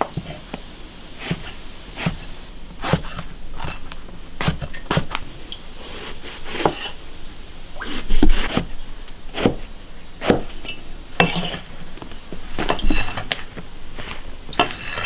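Cleaver chopping peeled eggplant into thick strips on a wooden chopping block: irregular knocks of the blade on the wood, about one a second. Insects chirp steadily in the background, with a higher insect hum joining about halfway.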